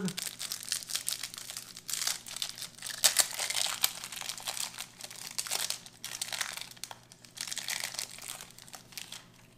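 Foil-lined protein bar wrapper being torn and peeled open by hand, crinkling in irregular bursts that die down near the end.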